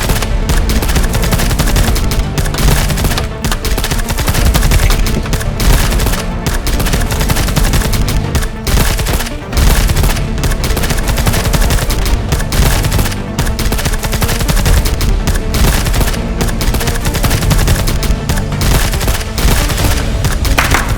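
Rapid gunfire-like shots in long continuous volleys, played over loud background music with a steady low bass line.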